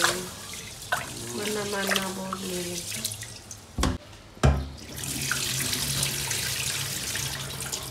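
Rice being washed by hand in water inside a rice cooker's inner pot, with splashing and swishing, then two sharp knocks about four seconds in, and the cloudy rinse water pouring out of the pot into a stainless steel sink.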